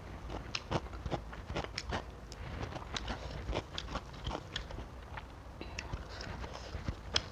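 Eating sounds: crisp, irregular crunching and chewing of raw leafy greens, with leaves crackling and snapping as they are torn by hand. One sharper snap comes near the end.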